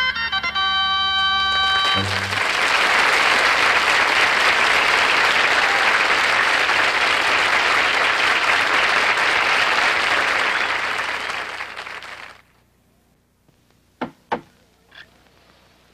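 A song ends on a held chord about two seconds in, followed by studio audience applause for about ten seconds that fades out. After a short quiet, two sharp knocks close together.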